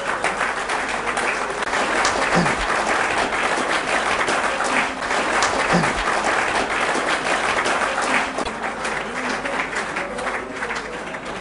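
Applause from a crowd: many people clapping hands continuously, easing slightly near the end, with two brief low thumps.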